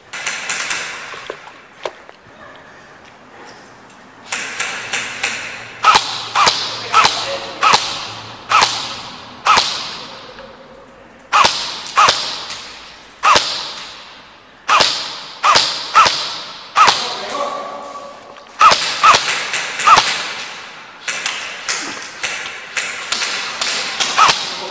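Airsoft guns firing a steady exchange of single shots, each a sharp crack followed by an echoing tail; sparse at first, then about one or two shots a second from about four seconds in, with a brief lull later on.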